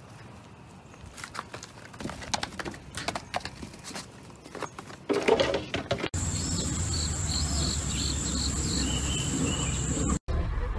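Sharp taps and clatters of goat hooves on wooden stumps. After a cut about six seconds in, a steady high-pitched whine with short repeated chirps over an even outdoor hiss.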